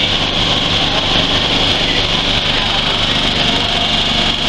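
Coffee bean sorting machine running steadily: its vibrating sieve screens shaking with beans on them, a loud, even rattling hiss over the motor's drone.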